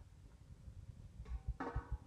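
Water boiling in a wok under an aluminium steaming tray of rice-noodle batter, a faint irregular low bubbling. About a second and a half in comes a short metallic clink with a brief ringing tone, metal on metal.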